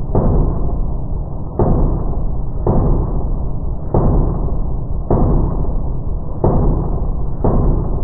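Glock 19C 9mm pistol, ported and fitted with a compensator, fired seven times at a steady pace of about one shot a second, each report ringing on until the next.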